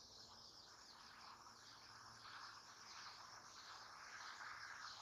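Near silence with faint insect chirring.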